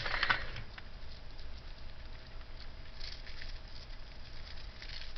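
Loose costume jewelry (beads, chains and shells) clicking and rattling as it is handled and sorted through by hand. The small clicks come in short spells: near the start, about three seconds in, and again near the end.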